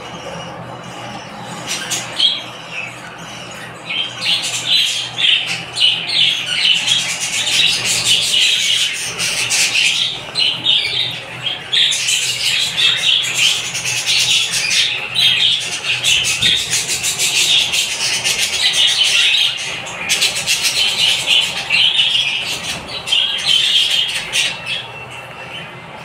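Budgerigars squawking and chattering in rapid, shrill flurries, starting about four seconds in and fading near the end.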